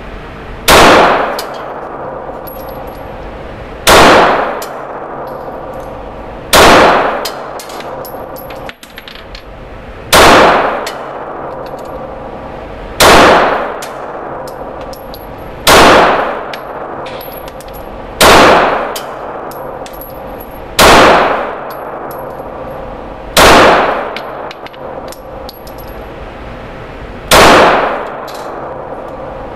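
Glock G19 9mm pistol firing Blazer Brass rounds: ten single shots spaced about three seconds apart. Each shot rings off in the echo of the indoor range.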